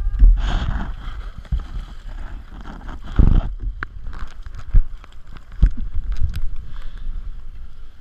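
Seawater splashing and washing over a concrete ledge, in bursts near the start and about three seconds in, with a low rumble of wind on the microphone and several sharp knocks of the camera being handled.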